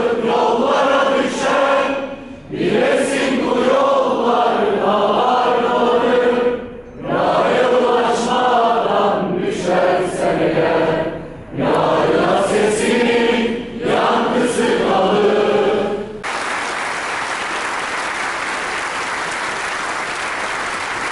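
A large crowd singing a song together in unison, led by a man singing into a microphone, in long phrases with short breaks between them. About sixteen seconds in, the singing stops and the crowd applauds.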